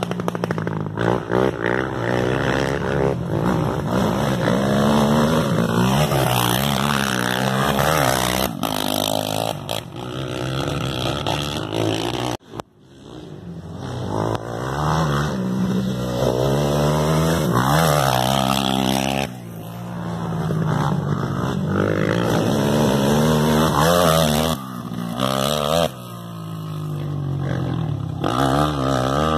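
Off-road race engines revving hard, their pitch climbing and dropping again and again as the machines accelerate, shift and pass. The sound breaks off abruptly about twelve seconds in, then the engines pick up again.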